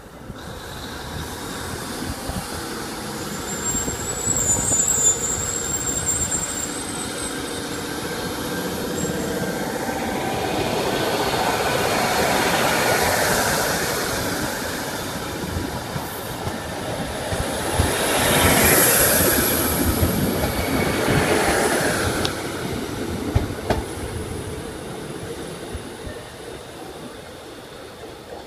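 Class 153 and Class 156 diesel multiple units pulling away, their underfloor Cummins diesel engines working hard as the carriages pass close by, with some wheel squeal on the curving track. The sound builds, swells twice as the units go past, then fades off into the distance near the end.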